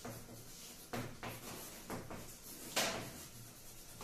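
Chalk scratching and tapping on a blackboard as words are written, in a few short strokes; the longest scrape comes about three-quarters of the way through.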